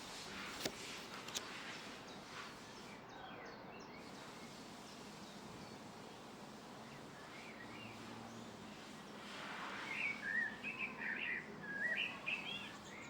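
A small bird chirping in a quick run of short calls over the last few seconds, over a steady outdoor background hiss. A couple of light clicks near the start.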